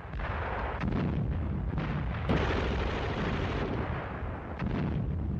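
Battle sound of rumbling explosions and gunfire, with a single sharp crack a little over two seconds in.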